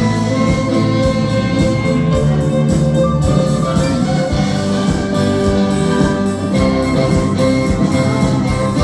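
A small orchestra playing live through a PA system. Violins, cello, flutes, saxophone and trombone hold notes over a steady percussion beat.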